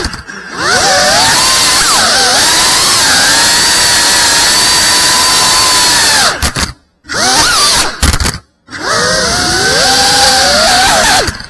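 FPV drone's electric motors and propellers whining, the pitch gliding up and down with the throttle. The sound cuts out twice briefly about two-thirds in, then comes back.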